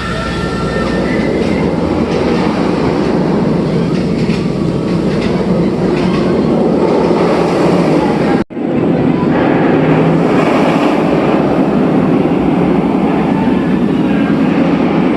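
Steel roller coaster train running along its track: a loud, steady rumble of wheels on rail, broken by a sudden cut about halfway through.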